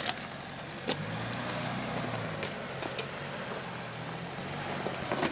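Off-road vehicle engine idling with a steady low hum over a background hiss, with a couple of sharp clicks at the start and about a second in.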